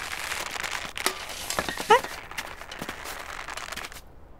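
Cartoon sound effects: a steady crackling hiss with scattered clicks, and a brief rising squeak about two seconds in. The hiss cuts off shortly before the end.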